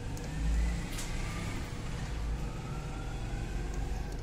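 Background motor-vehicle engine noise with a low rumble, which swells about half a second in, and a pitch that slowly rises.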